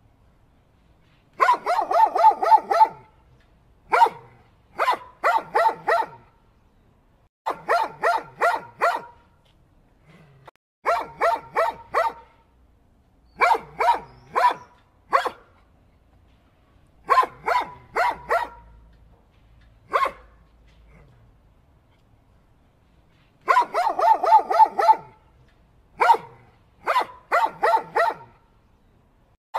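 A dog barking in quick volleys of about four to six sharp barks, each volley about a second long, with a pause of a second or two between volleys; now and then a single bark stands alone.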